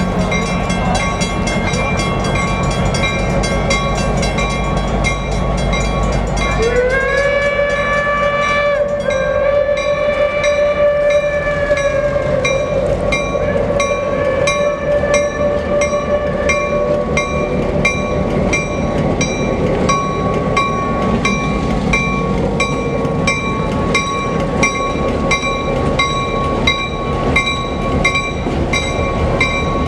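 Reading T1 steam locomotive's multi-chime hooter whistle sounding in the distance. It swoops up into one long blast about six seconds in and trails off by the middle, then a shorter call follows. Under it a switcher locomotive runs steadily with a railcar, its wheels clicking regularly over the rail joints.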